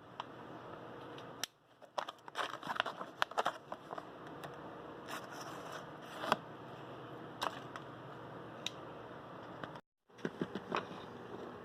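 Irregular sharp clicks, snaps and crackly rustling of something being handled and worked by hand, with a steady faint hiss underneath.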